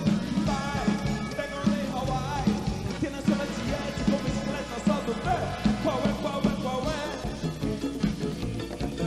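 Axé band playing live: an instrumental passage over a steady, driving beat, with a lead melody line that bends up and down.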